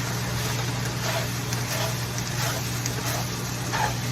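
Steady low hum of a running kitchen appliance, such as a stove's vent fan or the oven, with only faint small kitchen noises over it.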